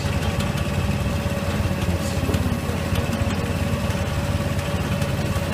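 Asphalt mixer's engine running steadily at idle, a low even hum with a steady higher whine over it that fades near the end, as the machine starts up ahead of the burner lighting.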